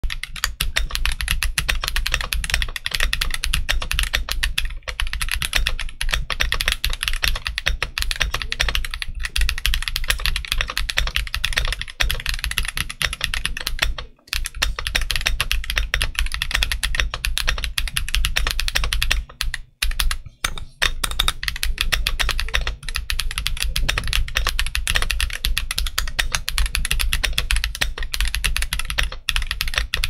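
Steady, fast typing on an Akko ACR Pro 68 acrylic-case mechanical keyboard with stock Akko Crystal switches and double-shot PBT ASA-profile keycaps. The typing breaks off briefly twice, about halfway through and again about two-thirds of the way in.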